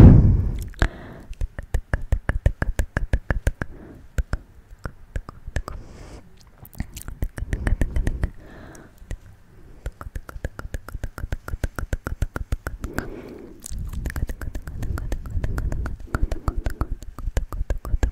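Close-miked ASMR wet mouth sounds: a rapid, uneven stream of tongue clicks and lip smacks, with a few short breathy passages.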